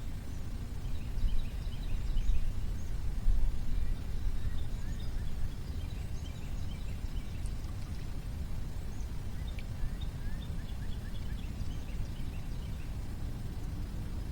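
Uneven low rumble, loudest in the first few seconds, with runs of quick, repeated bird chirps twice, about a second in and again around ten seconds in.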